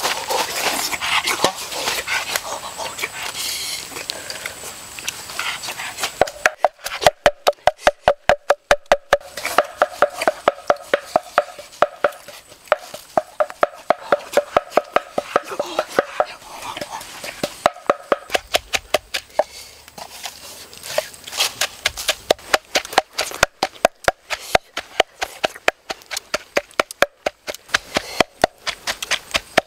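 Rustling at first, then from about six seconds in a long run of sharp knocks, two to three a second and unevenly spaced, with a faint steady tone under them for a while.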